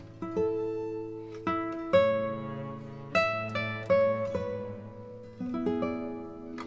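Background music: gentle plucked acoustic guitar, single notes and chords, each ringing and fading before the next.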